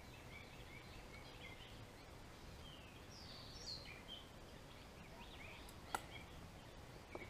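Quiet outdoor background with faint, scattered bird chirps. There is a sharp click about six seconds in and another just before the end.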